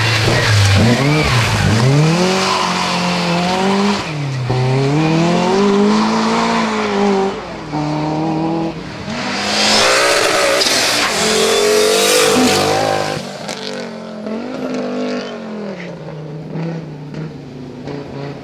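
Historic rally cars passing one after another at speed on tarmac: first an Opel, then an Audi quattro with its turbocharged five-cylinder, engines revving hard up and down through gear changes. A burst of hissing tyre noise comes about ten seconds in, and the engine noise is fainter and more distant in the last few seconds.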